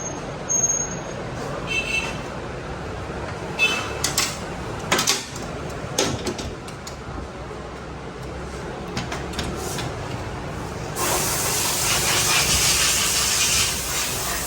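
Workshop clinks and knocks of tools on a motorcycle, then a loud hissing jet of spray or air for about three seconds near the end.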